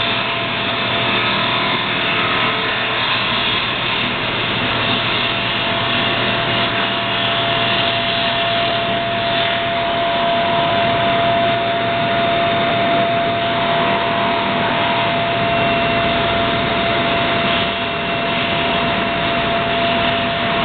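CNC milling machine running a milling cutter through a part, a steady machining noise with a constant whine.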